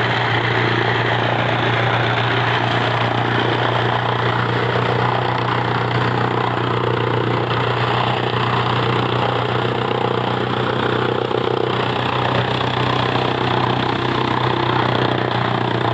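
A machine's motor running steadily, with a constant low hum.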